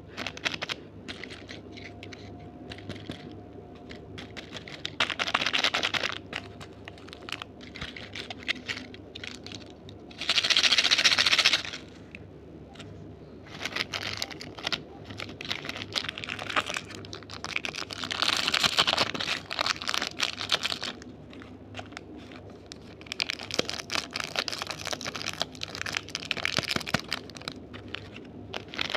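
Plastic candy wrappers being crinkled and torn open, an irregular run of crackles and clicks with louder rustling bursts, the loudest about ten seconds in.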